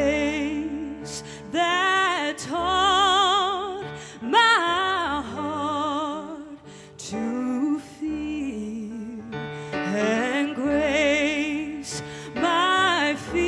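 A woman singing a slow, sad song in several phrases, with wide vibrato on the held notes, over sustained accompaniment chords.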